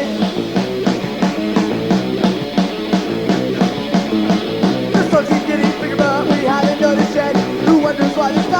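Pop-punk band's demo-tape recording playing an instrumental break between verses: full band music over a quick, steady drumbeat, with a wavering pitched line appearing in the second half.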